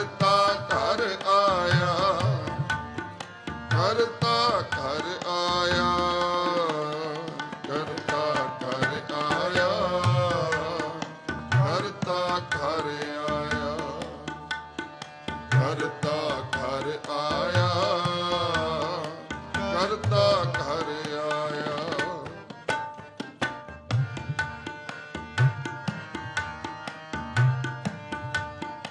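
Sikh shabad kirtan: ragis singing a slow, ornamented melodic line over harmonium drones and tabla. The voices drop out about 22 seconds in, leaving the harmonium and tabla playing on.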